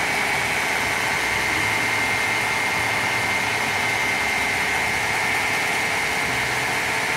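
Hand-held immersion blender running steadily in a tall container, its motor giving a continuous high whine.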